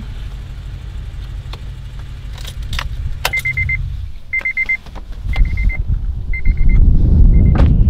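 A 2011 Honda Civic Si's 2.0-litre four-cylinder engine, fitted with an aftermarket intake, header and exhaust, idles and is switched off about four seconds in, after a few key clicks. The car's warning chime then beeps in short rapid bursts about once a second. Near the end a louder low rumble builds and there is one sharp knock.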